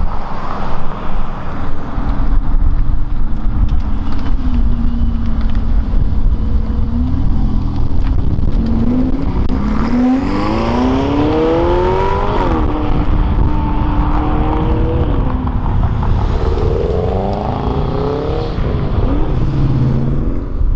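Ferrari engine accelerating away: its pitch climbs steeply about eight seconds in, drops and holds steady, then climbs again near the end.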